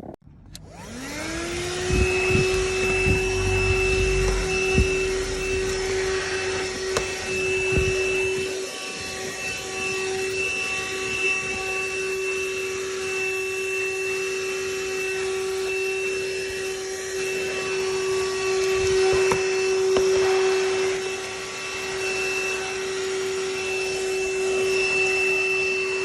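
THISWORX 12-volt handheld car vacuum switching on, its motor whine rising quickly to a steady high pitch and running on. A few knocks and low rumbles come in the first several seconds.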